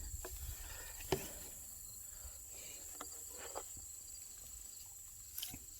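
Steady high-pitched insect chorus, with a few faint clicks and knocks scattered through, one about a second in and another near the end.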